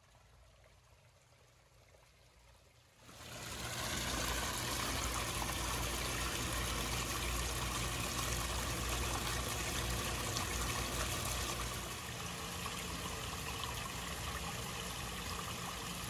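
Water trickling and splashing down a small natural-rock garden pond waterfall. It is faint at first, then rises suddenly about three seconds in and stays steady, easing off slightly near the end.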